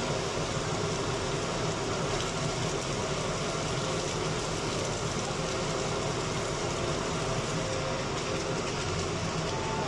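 Lotus root and minced pork cakes sizzling steadily in hot oil in a frying pan while they are turned over to brown on both sides.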